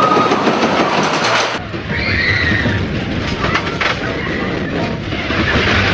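Roller coaster train rumbling and clattering along the track, with riders' screams rising and falling over it. The sound changes abruptly about a second and a half in.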